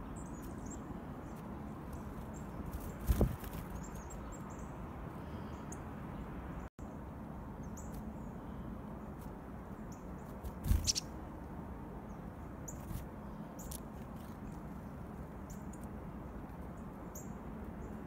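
Soft, short, high chips and calls of black-capped chickadees scattered throughout, with a few brief loud thumps of small birds landing on and leaving a hand, about three and eleven seconds in, over a steady low outdoor hiss.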